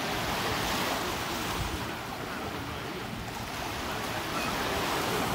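Choppy sea surf washing and splashing, louder in the first second or so and again near the end.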